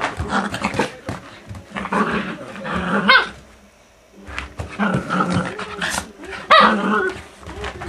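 Maltese dogs growling and barking while play-fighting, in two bouts with a short pause about halfway through and a sharp bark at the end of each.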